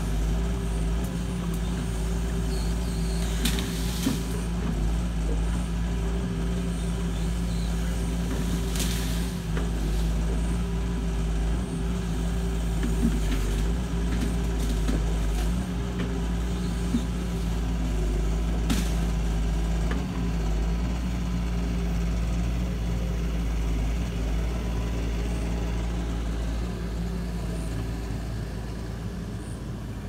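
Doosan DX140W wheeled excavator's diesel engine running steadily under working load as the machine digs, with a few sharp knocks along the way.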